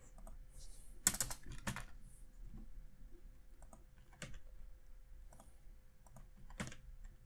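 Computer keyboard typing: scattered, irregular key clicks, with a few louder keystrokes, as code is copied, pasted and edited.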